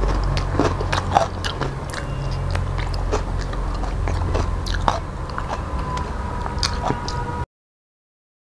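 Close-up mouth sounds of a person chewing a handful of rice and dal eaten by hand: wet smacks and sticky clicks over a steady low hum. The sound cuts off to dead silence about seven and a half seconds in.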